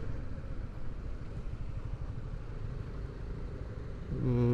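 Honda CB150R single-cylinder motorcycle running on the road, a steady low rumble of engine and wind. About four seconds in, a steady low pitched tone starts over it.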